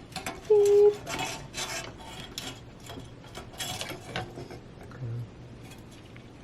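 A short steady beep, the last of a series of three about a second apart, followed by a few seconds of light clicking and clattering of small hard parts and tools being handled during a PC build.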